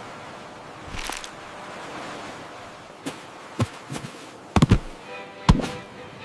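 A run of sharp knocks or pops at uneven intervals, about six in all, the loudest two near the end, over a steady hiss.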